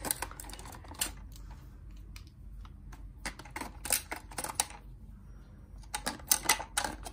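Batteries being pressed into a plastic toy's battery compartment: bursts of small clicks and taps as each cell knocks against the plastic and snaps onto the spring contacts. The clicks come in three clusters: about a second in, around the middle, and near the end.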